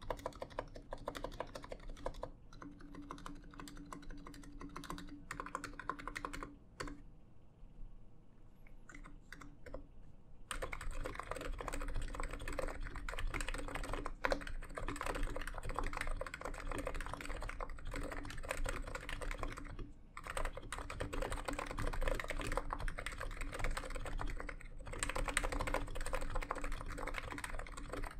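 Typing on a NiZ X87 keyboard with 45 g electrocapacitive Topre-clone switches: rapid, continuous key presses. The typing thins out and goes quieter for a few seconds about a third of the way in, then comes back louder and denser.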